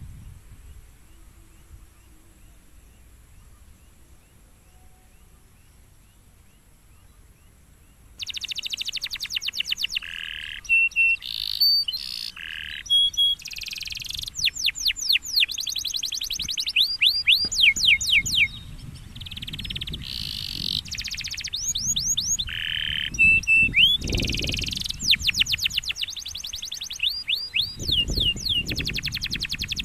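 Domestic canary in full song, starting about 8 seconds in after a quiet stretch and then singing without a break. The song mixes fast trills of quick falling notes with held whistled tones and buzzy rolls. A low rumble sits underneath in the second half.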